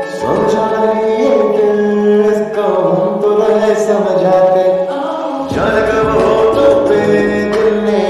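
Background song with singing voices over accompaniment; a fuller, deeper bass comes in about five and a half seconds in.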